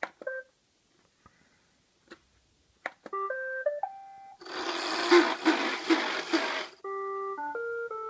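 iRobot Roomba 555 robot vacuum started with its button: a few faint clicks, then a short tune of stepped electronic beeps, a couple of seconds of harsh crackling noise from the machine, and another stepped beep sequence near the end. Everything about the unit crackles: it is still faulty after the repair.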